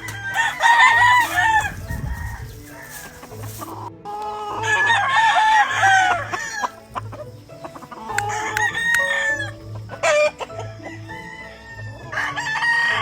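Gamefowl roosters crowing about four times, the crows overlapping one another, with clucking between them.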